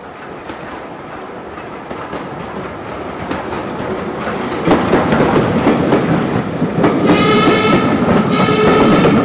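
LSWR O2 0-4-4T steam tank engine hauling its coaches close past, the running noise and the wheels clattering over rail joints growing louder, with a steam whistle sounding twice near the end: one blast of over a second, then a shorter one.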